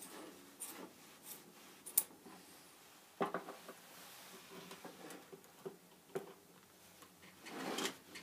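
Steel split ring and chainsaw chain being handled on a wooden table: faint metal clicks and clinks, a louder knock a little over three seconds in, and a rustling scrape near the end.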